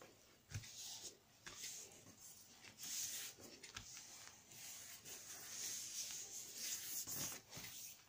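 Paper being handled and rubbed against a work surface, a soft uneven rustling with a few light clicks and taps.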